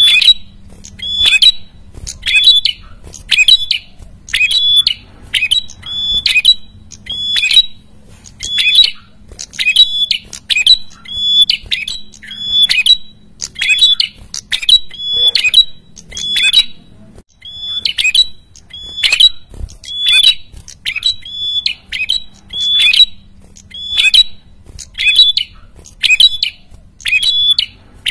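A caged prenjak kepala merah calling loudly and without let-up: a short, sharp, high note repeated roughly every three-quarters of a second, with one brief break about two-thirds of the way through.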